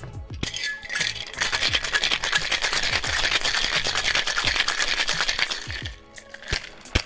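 Ice cubes rattling hard inside a Boston shaker, a metal tin sealed over a mixing glass, as a cocktail is shaken. The shaking starts about a second in and stops after about five seconds.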